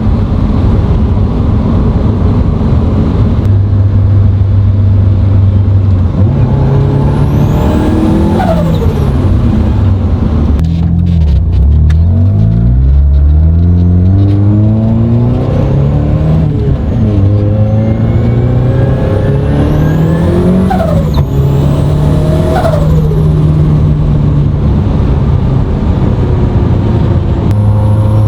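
Turbocharged 1.6-litre Mazda Miata four-cylinder driven hard, its pitch climbing through the revs and dropping several times at shifts or lift-offs. A high whistle rises and falls over the engine, typical of the turbo spooling.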